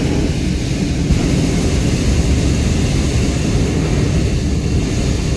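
Hot-air balloon's propane burner firing in one long, loud, steady blast, heard from the basket just below it.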